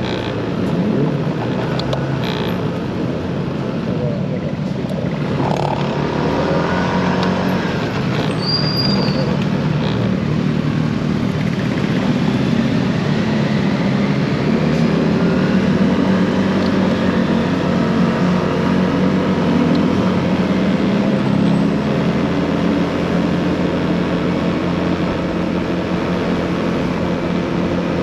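Motorcycle engine running on the road, its note rising and falling as the bike speeds up and slows, over steady road noise.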